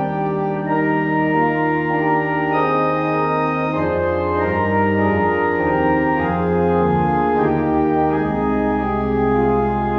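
Church organ playing the postlude: full sustained chords that change every second or so over a low bass line that steps to a new note every few seconds.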